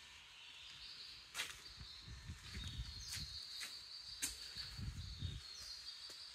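Faint footsteps on a concrete floor with a few light clicks, over a quiet room with a faint high-pitched chirping tone.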